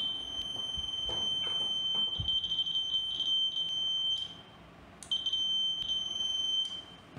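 Handheld VLF metal detector beeping a steady, high-pitched continuous tone with no metal near it: the fault being repaired, a detector that beeps constantly. The tone cuts out about four seconds in, returns about a second later and stops again near the end, with a few light handling knocks.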